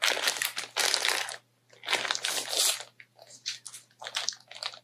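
Clear plastic packaging of a cross-stitch kit crinkling as it is handled. It comes in two longer rustles, then several shorter crackles.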